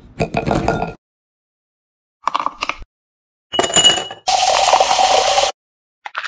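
A string of short, separately cut kitchen sounds, each ending abruptly in silence: clinks of metal or glass with a ringing tone, then just over a second of steady loud hiss.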